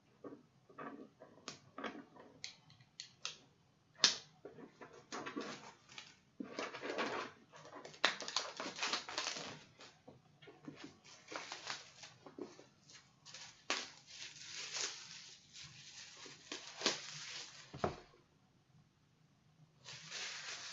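Merchandise box and packaging being handled and unwrapped: irregular rustling and crinkling with scattered clicks and taps, and one sharp knock about four seconds in.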